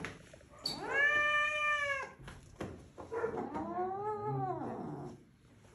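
Domestic cat yowling angrily while held down for a claw trim: two long drawn-out yowls, each rising then falling in pitch, the first louder.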